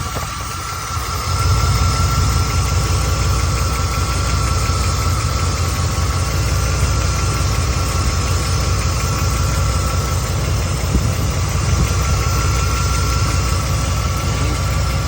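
A 1991 Chevy K1500's 5.7-litre TBI small-block V8 idling steadily, with a rapid tick running through it that has outlasted new injectors. It gets louder about a second in.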